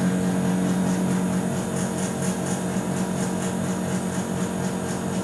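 Spindle motor driven by a Yaskawa CIMR-MTIII-11K spindle drive on a test stand, running at a steady speed with a steady hum and a high-pitched inverter whine.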